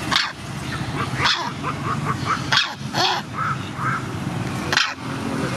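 An animal giving an irregular series of sharp barks mixed with short high yelps.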